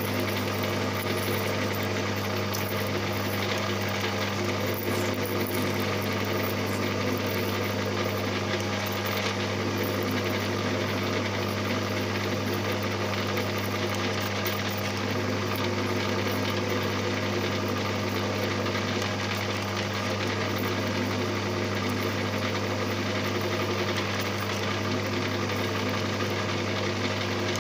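Maximat metalworking lathe running steadily at about 240 rpm while a parting tool is fed slowly into the spinning workpiece, a constant motor and gear hum.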